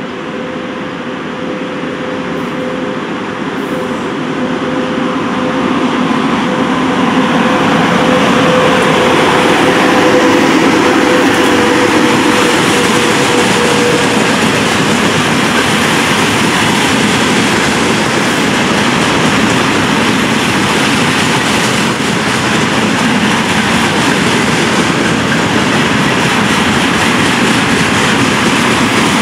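A train running past close by: the rumble builds over the first several seconds, then holds steady and loud. A steady whine sounds over it and fades away about halfway through.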